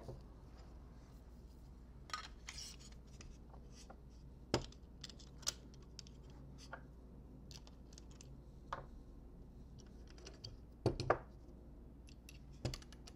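Light clicks and knocks of metal motorcycle clip-on handlebar parts (bar tubes, clamps, bolts and washers) being handled and fitted together by hand, a few seconds apart, with a louder pair of knocks about eleven seconds in.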